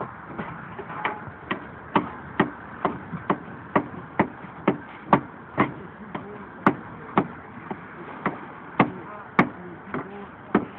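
Hand hammer striking wood on roof framing and decking in a steady rhythm, about two blows a second, some blows louder than others.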